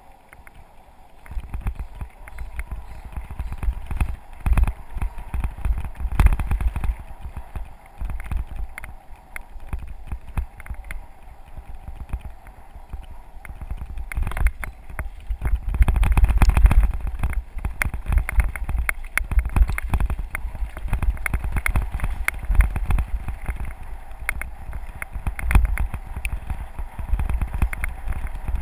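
Mountain bike rolling over a gravel dirt forest road, heard from a camera on the bike or rider: a constant low rumble with frequent sharp rattles and clacks over bumps, getting louder about halfway through.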